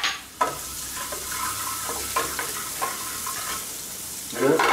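Chopped garlic sizzling in hot oil in a metal frying pan, stirred with a wooden spoon that scrapes lightly against the pan. The sizzle starts suddenly about half a second in and then holds steady.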